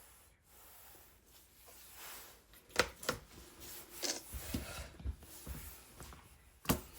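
Small tools and tablet parts handled on a workbench during a repair: soft rubbing and scraping with a few sharp clicks or taps, the loudest near the end.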